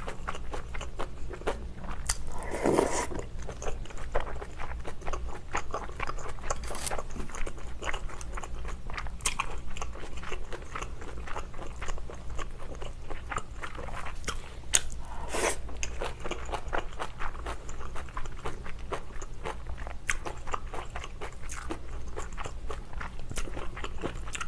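Close-miked chewing and biting of kimchi jjim, braised pork and kimchi: a steady run of small crunches and mouth clicks, with a few louder bites.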